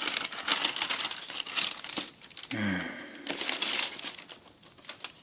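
Wrapping paper in a sneaker box crinkling and rustling as the shoes are lifted out, in irregular crackly bursts that die away near the end.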